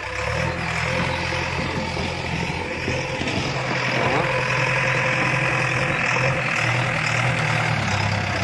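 Backhoe loader's diesel engine running steadily under load as its front bucket pushes and spreads gravelly soil.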